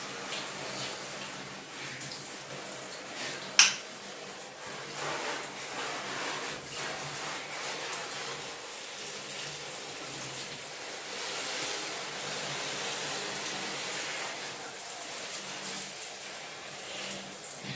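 Water running steadily from a shower or tap, spraying onto potted plants. One sharp knock sounds about three and a half seconds in.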